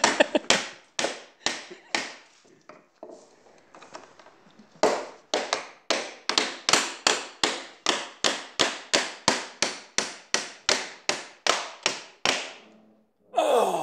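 A mallet driving a wooden key into a timber scarf joint. First come a few blows about two a second, then a lull with lighter taps, then a long, even run of about three blows a second that stops shortly before the end.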